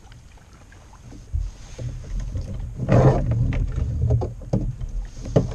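Handling noise aboard a plastic fishing kayak: irregular knocks and bumps against the hull and seat, with a louder rustling burst about three seconds in and a sharp knock near the end.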